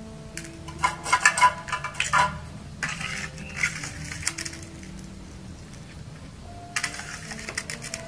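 Plastic scoop digging through and stirring loose dark granules in a plastic tray: gritty rattling and clicking of the granules against the scoop and tray. It comes in three spells, about a second in, around three to four seconds in, and near the end.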